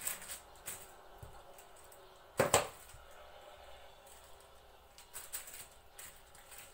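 Hands working almond-paste dough on parchment paper with a plastic rolling pin and cookie cutter: light rustles and small clicks, with one sharp knock of a utensil on the table about two and a half seconds in.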